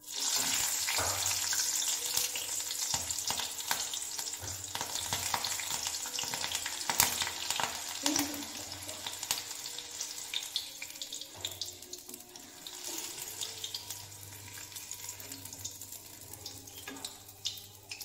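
Slit green chillies frying in hot oil in a kadai: a dense sizzle with crackling pops and spatters that starts suddenly as they go in and slowly eases off, with one loud pop about seven seconds in.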